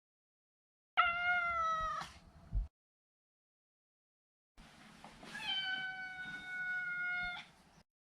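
Maine Coon cat meowing twice: a short meow about a second in that falls slightly in pitch, then a longer, level meow about five seconds in.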